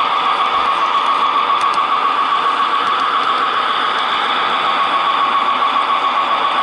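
Model train running along the track, heard from a camera riding on it: a steady mechanical whirr with a strong high whine, and a few faint clicks from the wheels on the rails.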